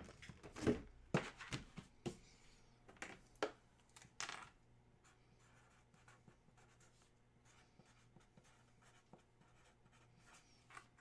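Trading cards being handled at a table: a few soft taps and scratchy slides in the first four seconds or so, then near silence with faint ticks.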